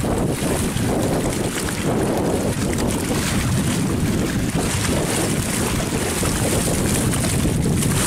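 Steady wind buffeting the microphone over the rush of fast-flowing river water churning against the bank.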